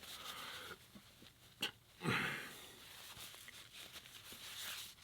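Quiet breathing and mouth sounds of a person at a meal, with a sharp click a little over a second and a half in and a short, low vocal sound falling in pitch about two seconds in.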